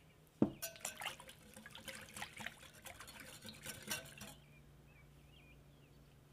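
Wire whisk beating a runny tomato-paste sauce in a glass measuring jug. A sharp knock, then about four seconds of quick clinking against the glass and sloshing liquid, which stops suddenly.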